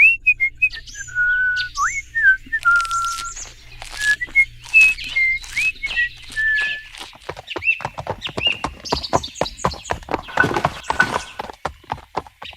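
Birds chirping: a string of short whistled notes that slide up and down, giving way after about seven seconds to a quicker run of sharp chirps.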